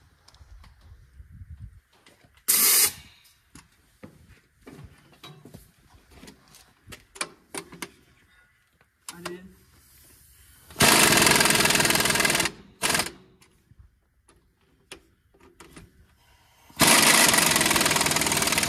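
Pneumatic impact wrench hammering on the rear wheel hub bolts, tightening them back up: a short burst about two and a half seconds in, then two longer rattling bursts of nearly two seconds each, around eleven and seventeen seconds in. Light clanks of tools and metal come between the bursts.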